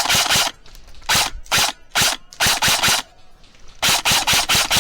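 Airsoft rifle firing close by in quick strings of sharp shots, about five or six a second, with short pauses between the strings.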